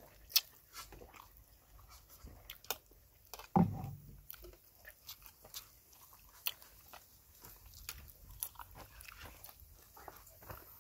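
Close-up eating: a spoon clicking and scraping on a plate and a mouth chewing, as a run of small scattered clicks. A brief louder sound comes about three and a half seconds in.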